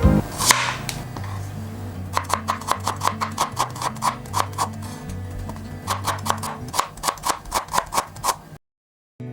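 Background music with a steady bass line, overlaid by a quick run of sharp taps, about three a second, that stops shortly before the sound cuts out suddenly near the end.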